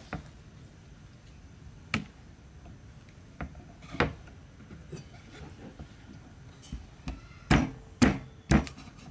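A knife chopping through a raw chicken's legs and feet onto a wooden chopping block: scattered single chops, then three loud ones about half a second apart near the end.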